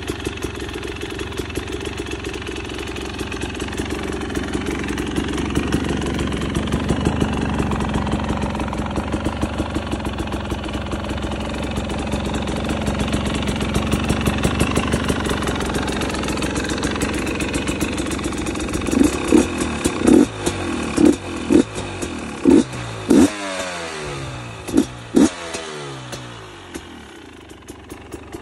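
2023 GasGas EC250 single-cylinder two-stroke engine with a full FMF exhaust idling steadily, then blipped in a string of about nine short, sharp revs, each falling back toward idle, before settling back to idle near the end.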